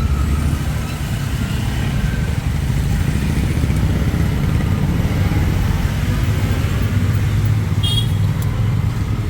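Steady rumble of street traffic, with a brief high-pitched tone about eight seconds in.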